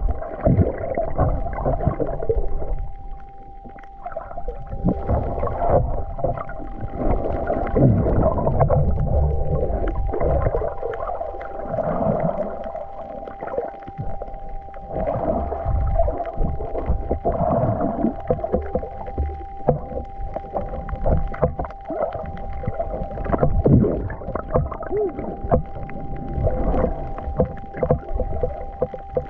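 Water sloshing and gurgling close to the microphone in irregular swells and bursts, over a steady faint hum.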